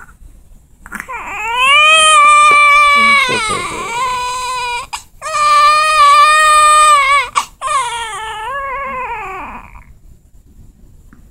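Newborn baby crying: loud, high, long wails with short breaths between them, starting about a second in and trailing off in a falling cry near the end.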